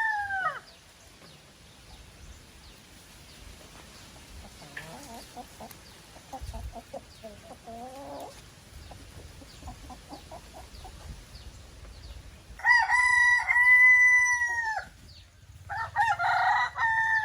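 Roosters crowing: one crow trails off at the start, a long loud crow comes about three-quarters of the way through, and another begins near the end, with faint clucking calls in between.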